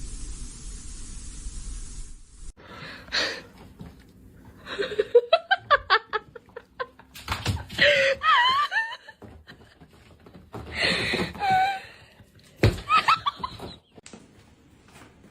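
A person laughing in several bursts, one of them a quick run of rising "ha-ha" pulses, after a steady hiss in the first couple of seconds.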